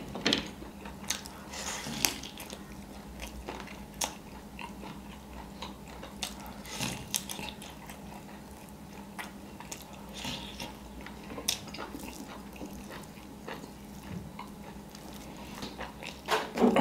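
Mouth sounds of a person eating parda biryani and chicken wings by hand: chewing and lip smacks, with scattered short sharp clicks.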